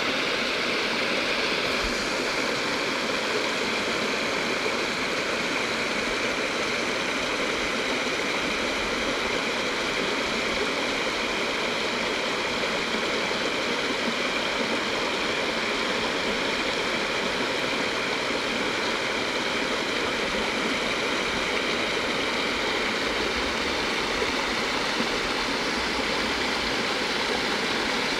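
Shallow stream running over flat bedrock and breaking into small white-water riffles: a steady rushing and splashing of water.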